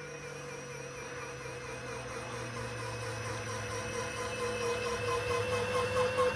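Robart electric retracts lowering the main landing gear of a large RC model aircraft: a steady electric-motor whine with a low hum that slowly falls in pitch, growing gradually louder as the wheels come down.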